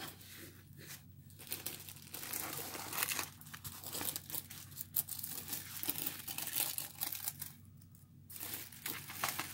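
Plastic and paper packaging of a diamond painting kit crinkling in the hands as it is unwrapped, in irregular spells of handling with a short pause near the end.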